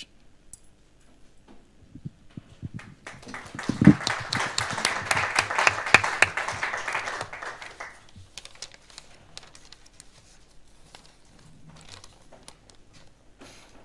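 Audience applauding, starting about three seconds in and dying away by about eight seconds, with a single thump near the start of the clapping. Afterwards only scattered light clicks and rustles.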